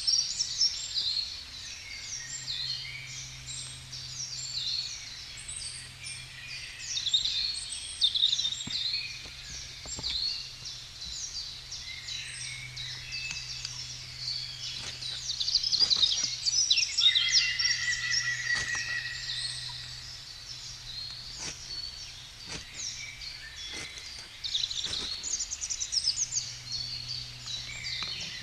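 Several songbirds singing and chirping over each other, with a short repeated trill about two-thirds of the way through. Occasional sharp clicks sound in the middle part.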